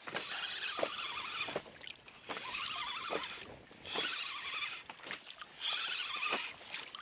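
Fishing reel cranked in repeated bouts of about a second each, about every one and a half seconds, reeling in a small hooked fish.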